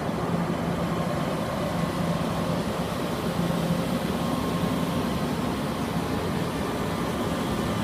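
Steady low hum with an even rushing noise, the sound of rooftop air-conditioning equipment running.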